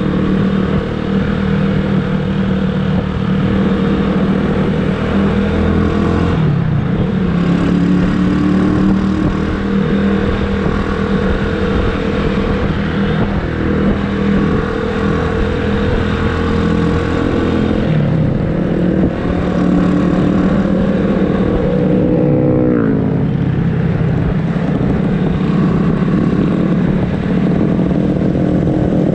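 Motorcycle engine running under way, heard from the rider's seat. Its note breaks briefly twice and falls away once about two-thirds of the way through.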